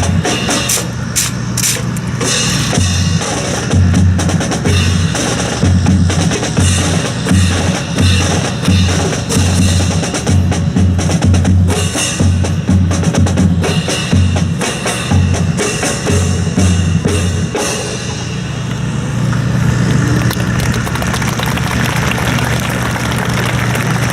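Percussion ensemble playing: bass drum beats and snare strikes in a fast, driving rhythm. About eighteen seconds in, it changes to a steadier, continuous drumming.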